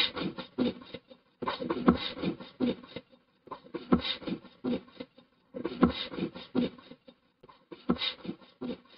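Hand saw cutting through a wooden log: quick rasping strokes, several a second, in runs of about a second and a half broken by short pauses.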